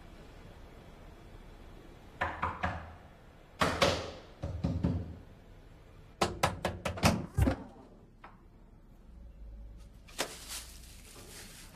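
Knocking and thuds at a door: a few knocks about two seconds in, a heavier thud just before four seconds, then a quick run of sharp knocks between about six and seven and a half seconds, with a fainter bump near the end.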